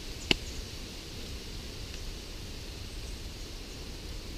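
A single sharp smack a fraction of a second in: a hand clamping down on a bare thigh to roll strands of mat rush leaf fibre into cordage. Around it is a steady background hiss.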